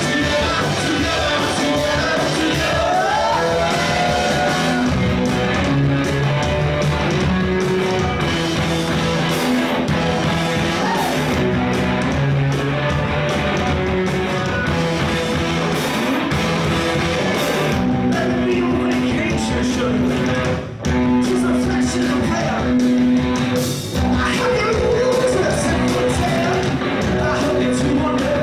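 Live rock band playing: two electric guitars, electric bass and drums, with a lead singer's voice. The band drops out briefly twice, a few seconds apart, in the last third.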